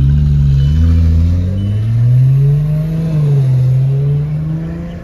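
Ferrari supercar's engine accelerating hard away from a standstill. Its pitch climbs and drops back again and again as it shifts up through the gears.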